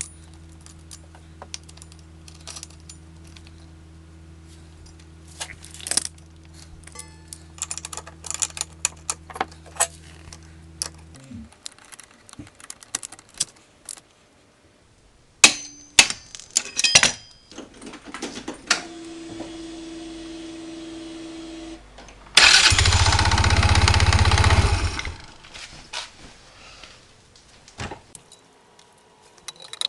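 A 125 cc single-cylinder scooter engine idling steadily with light clicking, then cutting off about eleven seconds in. After a few clicks and knocks, a loud burst of about two and a half seconds comes near the end, an electric start cranking the engine.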